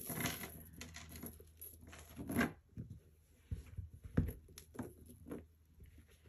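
A metal chain strap being handled and clipped onto a small handbag: irregular clinks and rustles with a couple of soft knocks on the table.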